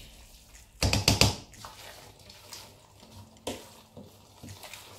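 A black plastic spoon stirring thick, leafy spinach soup in a stainless steel pot: wet stirring sounds, with a short burst of louder strokes about a second in and a single knock about three and a half seconds in.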